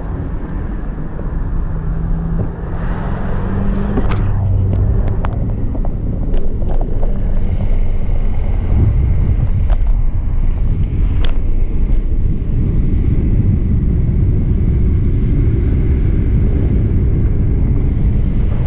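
Road noise from a car and the bicycle riding right beside it, with wind rushing over a handheld GoPro's microphone. It grows louder over the first several seconds as they pick up speed. A few sharp clicks and rattles are mixed in.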